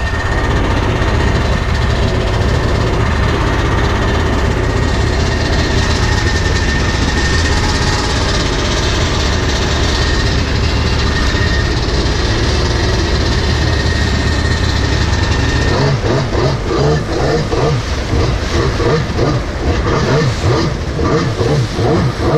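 Jet ski running on the water, its engine's steady low rumble mixed with rushing water and wind noise. Near the end the low rumble drops away and the sound turns uneven and choppy.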